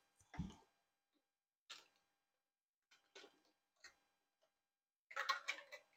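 Metal canning lids and utensils clinking at a small pot of hot water on the stove: a soft knock just after the start, a few scattered clicks, then a quick run of clinks near the end.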